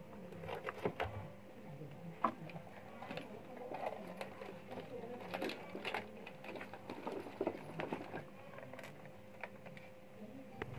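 Irregular clicks, taps and knocks of hands working on the plastic housing of a battery backpack sprayer as a small battery and its wires are fitted inside, over a faint steady hum.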